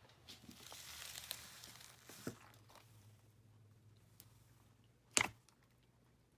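Hands stretching and squeezing a big batch of slime: soft sticky crackling and tearing over the first few seconds, a few small clicks, and one sharp pop about five seconds in.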